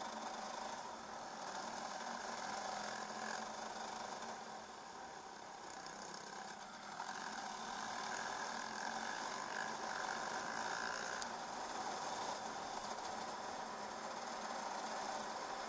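The two-stroke engine of a 2008 KTM 300 EXC enduro bike running under way, heard through a helmet-mounted camera. It eases off for a few seconds about five seconds in, then picks up again.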